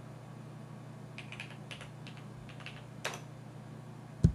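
Keys pressed on a Radio Shack TRS-80 Model 100's keyboard: a quick run of about six keystrokes, then a single sharper press a moment later. Just before the end a brief, dull thump, the loudest sound, over a steady low hum.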